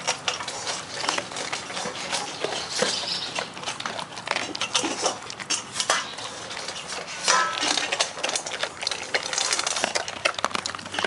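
Airedale Terrier eating from a stainless steel bowl: a continual irregular clatter of food and muzzle clinking against the metal.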